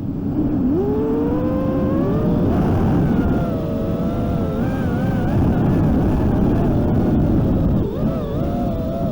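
FPV racing quadcopter's brushless motors whining as the throttle changes. The pitch climbs about a second in, then wavers up and down over a rush of wind noise.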